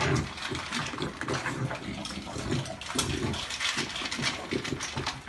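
A puppy eating dry kibble from a bowl, with quick irregular crunching and chewing and snuffling at the food.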